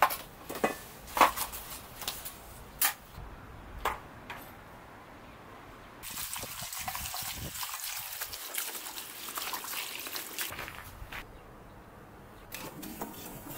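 A knife chopping bamboo shoots on a wooden cutting board, a string of sharp knocks over the first four seconds. About six seconds in, water runs into a metal bowl of whole bamboo shoots with a steady hiss for about four seconds.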